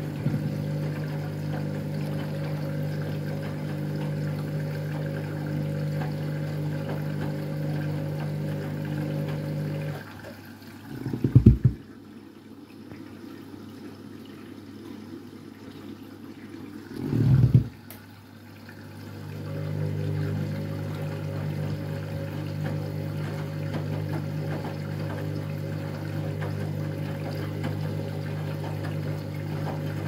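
Candy front-loading washing machine on a delicates rinse fill: a steady motor hum from the slowly turning drum of towels, with water pouring and sloshing. About ten seconds in, the drum stops for several seconds, broken by two short, louder low sounds. The steady hum then resumes.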